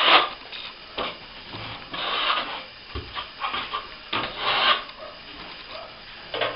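Rasping, scraping strokes of a hand tool rubbed over a plaster surface: a few separate strokes a couple of seconds apart, with a few sharp knocks between them.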